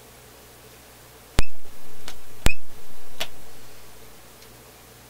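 Two sharp clicks about a second apart, then a fainter one: the alligator clips on a capacitor tester's test leads being clipped onto a capacitor's wires for a leakage test.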